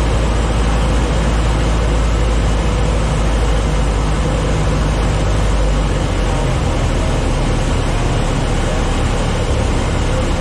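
Citabria light airplane's piston engine and propeller running steadily on a low approach to landing, with a loud, even drone; the deepest part of the drone eases about six seconds in.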